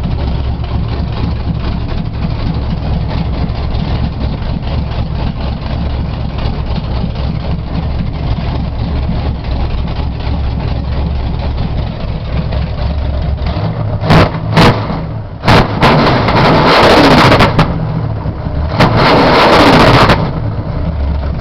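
Car engine idling steadily, then revved in three short throttle blips and two longer, harder revs of a second or so each, loud enough to distort, before dropping back to idle.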